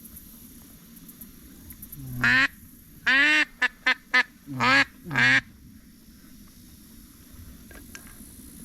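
A hunter's duck call blown in a quick series of seven loud quacks: a single quack, a longer one, three short ones, then two more.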